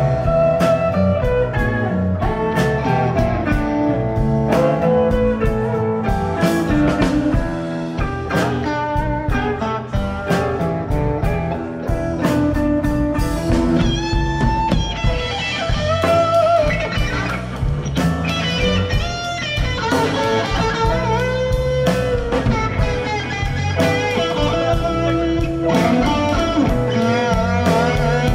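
Live blues-rock band playing an instrumental break: an electric guitar lead with bent notes over electric bass, drum kit and keyboard.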